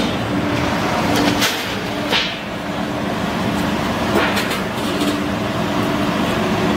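Mesh belt peanut roasting machine running with a steady mechanical hum and a faint steady tone, with a few brief clatters about one, two and four seconds in.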